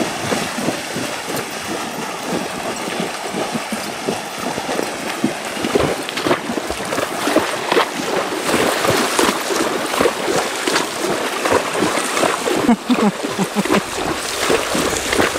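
Several horses wading through shallow lake water, their legs sloshing and splashing in an irregular, continuous patter that grows busier about halfway through.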